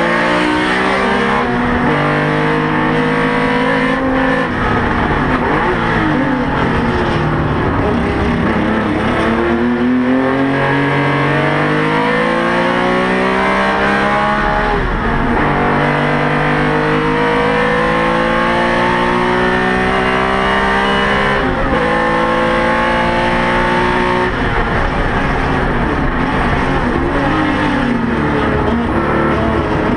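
Porsche 911 RSR race car's flat-six engine heard from inside the cabin under hard track driving, its note climbing through the revs and dropping sharply at each gear change, with several upshifts and a run of downshifts for a corner.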